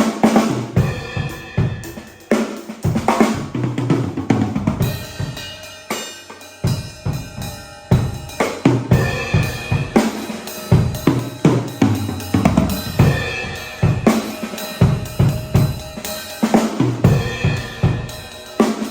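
MK acoustic drum kit with stock heads and cymbals, played raw and unprocessed: kick drum, snare, hi-hat and cymbals in a continuous pattern. The kick drops out briefly about six seconds in.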